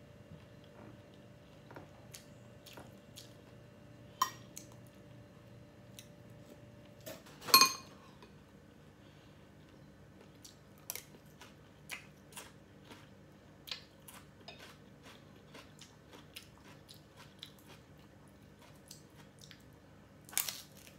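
Crispy fried shrimp crunched and chewed close to the microphone: a steady run of small crackles and mouth sounds. A metal spoon clinks against a glass bowl twice with a short ring, the second clink about seven and a half seconds in the loudest sound, and there is a loud crisp bite near the end.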